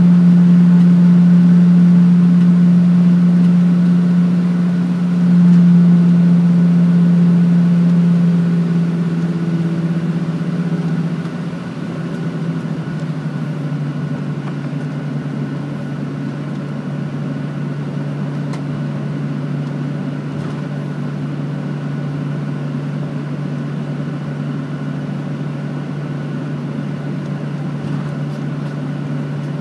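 Cabin drone of a Boeing 737-800's CFM56 jet engines at taxi thrust, a steady hum with airflow hiss. About 11 seconds in, it drops in pitch and gets quieter as the thrust is eased back, then holds steady.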